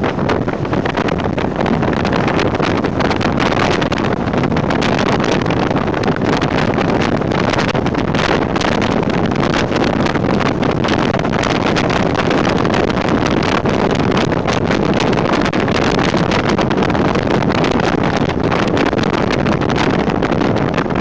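Jeep CJ7 driving at speed on a dirt road: steady, loud wind rush buffeting the outside-mounted microphone, mixed with engine and tyre noise.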